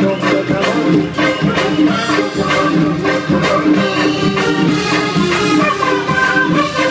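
Live band playing an instrumental passage of Persian pop: drums keep a steady beat under sustained keyboard and melody lines, with no singing.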